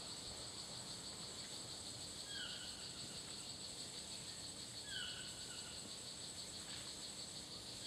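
Tropical rainforest insect chorus, a steady high-pitched buzzing and trilling, with a short falling animal call repeating about every two and a half seconds.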